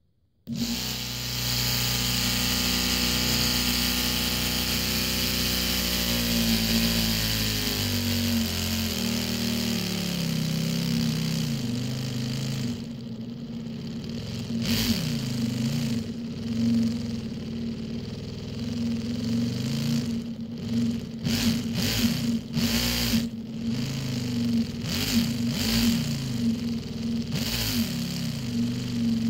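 Lego V6 engine model running, starting suddenly about half a second in: a steady mechanical whir whose pitch steps down over the first ten seconds and then holds, with irregular plastic clicks and clatter from the moving pistons.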